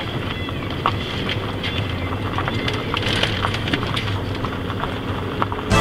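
Car rolling slowly along a gravel road: a steady low rumble of the tyres and road, with scattered crunching clicks of loose stones under the tyres.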